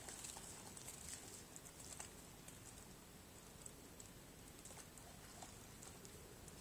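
Near silence: faint woodland ambience with a few scattered faint ticks.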